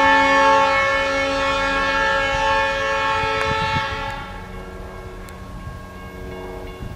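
Diesel locomotive's air horn sounding one long blast, a chord of several tones, at a road crossing. It cuts off about four seconds in, leaving a fainter steady ringing and the low rumble of the train.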